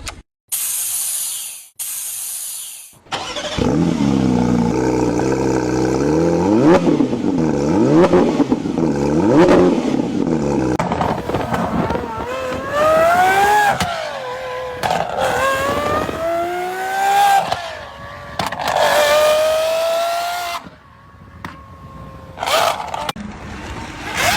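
Supercar engines revving hard several times in quick succession, then accelerating with the pitch climbing and dropping back at each gear change. Two short bursts of hiss come first.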